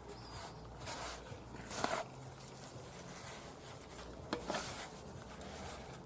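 Hands squishing and kneading minced meat with breadcrumbs in a bowl: soft, wet rustling, with a couple of short clicks about two and four seconds in.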